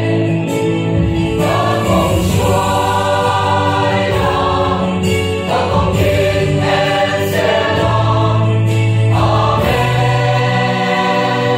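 Mixed choir of men and women singing in harmony, with long held chords and the men's low voices under the women's.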